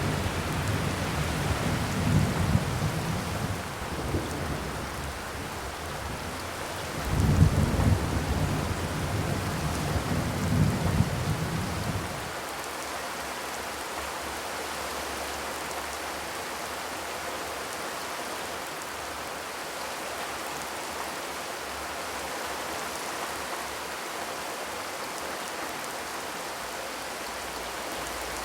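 Steady rain falling. For the first twelve seconds low rumbles swell twice over it, then stop abruptly about twelve seconds in, leaving an even hiss of rain.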